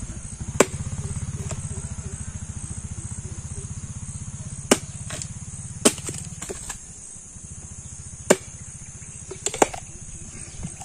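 Billhook chopping into a green tender coconut's husk and shell: about eight sharp, irregularly spaced chops as the drained nut is split open to reach the soft flesh. A low steady hum runs under the first six seconds or so, then fades.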